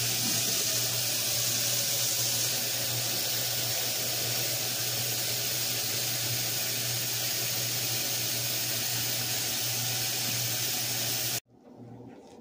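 Kitchen tap running into a saucepan in a stainless steel sink, filling it with water: a steady rush that cuts off suddenly about eleven seconds in.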